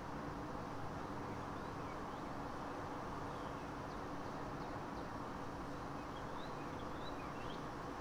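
Steady background hiss with a low hum, and faint, short bird chirps from about a second and a half in until near the end.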